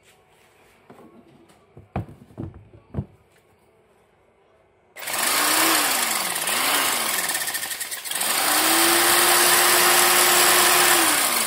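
Benz BZ8089 400-watt jigsaw set to speed 4. A few light knocks as it is set on a pine board, then two short trigger pulls whose motor whine rises and falls. It then runs steadily for about three seconds, sawing the board, and winds down when released near the end.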